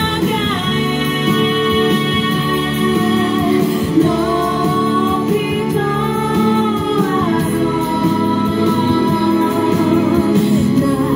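A woman singing through a microphone and PA speakers over instrumental accompaniment, holding long notes of two to three seconds each.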